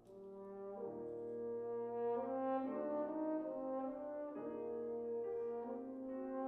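French horn enters and plays a slow melody of long held notes over piano accompaniment, swelling in loudness over the first couple of seconds.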